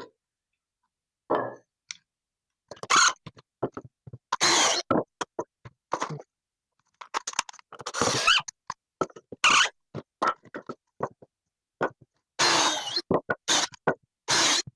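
Irregular scrapes, rustles and knocks of hand work, coming in short bursts with silent gaps between.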